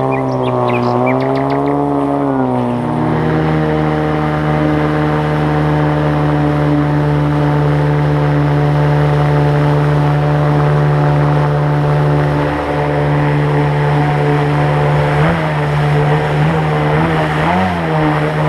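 Mercury 25 jet outboard driving an inflatable tunnel-hull jet boat under power. Its pitch dips and rises over the first few seconds, then settles into a steady high drone with rushing water beneath. The pitch wavers again about fifteen seconds in as the throttle changes on the rapids.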